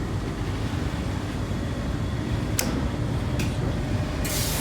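Rain Master D35 industrial tumble dryer running steadily, its drum turning and blower going, now working again after a loose wire on the drive motor's supply was reconnected. A sharp click comes a little past halfway, and a hiss starts near the end.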